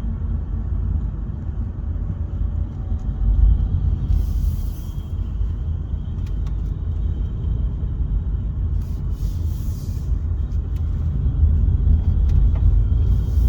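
Cabin noise inside a 2014 Mercedes-Benz C-Class (W205) on the move: a steady low rumble with a thin, high ringing tone that fades in and out twice. The ringing is engine-bay noise, which the owner traces to the high-pressure fuel pump, leaking into the cabin through a faulty steering-shaft boot in the driver's footwell.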